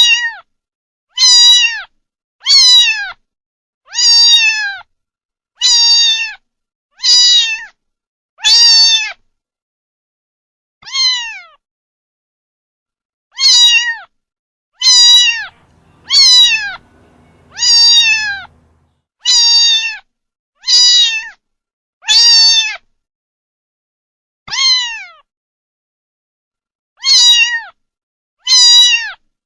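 Kitten meowing over and over: about seventeen short, high-pitched meows, each dropping in pitch at its end, with a couple of longer pauses between runs.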